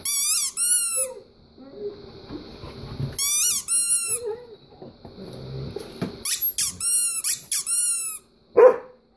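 A rubber squeaky dog toy squeaked in quick pairs, about eight high, arched squeaks in three bursts, while two dogs play. One short, lower dog call near the end.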